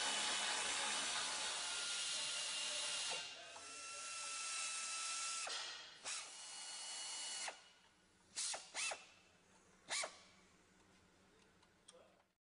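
A power drill running: a long steady spell, then more running with a steady whine, then stopping. A few short trigger bursts follow near the end.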